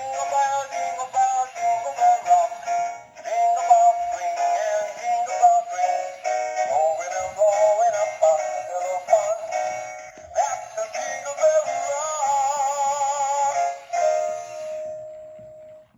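Animated reindeer Christmas toy playing a Christmas song with singing, with almost no bass. The song ends on a held note about a second before the sound stops.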